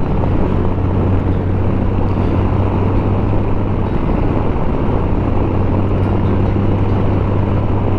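Honda Gold Wing motorcycle cruising at a steady speed: a constant low engine hum under loud wind and road rush on the microphone.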